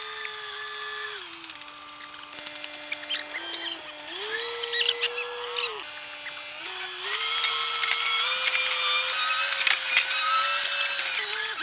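Excavator running, its whine dropping in pitch and rising again several times as the machine is worked under load, with scattered clicks and crackles of scraping debris.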